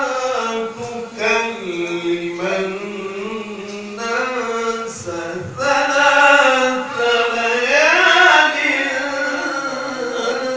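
A male qari reciting the Quran in the melodic tilawah style, with long held notes that waver and slide. The line climbs to its loudest, highest passage about eight seconds in.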